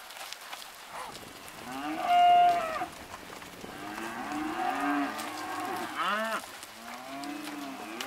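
Steers mooing: a loud call about two seconds in, then several overlapping calls through the rest.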